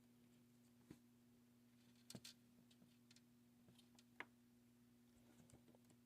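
Near silence with a faint steady hum, broken by a few light clicks about a second in, around two seconds in and around four seconds in: small metal motor parts such as a washer being handled.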